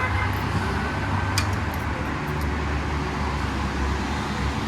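Road traffic: a steady low engine rumble of passing vehicles, with a single sharp click about one and a half seconds in.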